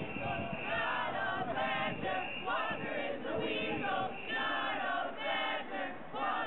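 A group of voices singing together in unison, holding sung notes.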